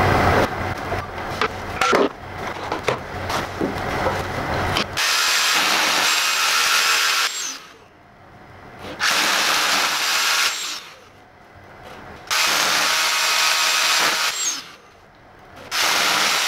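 A few seconds of knocks and clatter, then a Makita 18V cordless rotary hammer drilling into the wall in four runs of about two seconds each, with short pauses between them.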